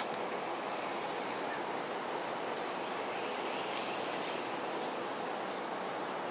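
Steady outdoor background noise, an even hiss with no distinct events. A brighter, higher hiss swells about three seconds in and cuts off near the end.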